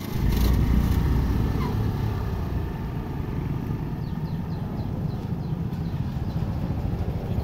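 Scooters and motorcycles running and pulling away across a railway level crossing: a steady low engine rumble, loudest in the first second or so. A run of short, high, falling chirps comes between about four and six seconds in.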